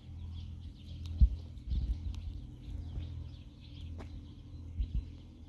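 Birds chirping faintly over a steady low rumble, with a few dull low thumps, the loudest about a second in.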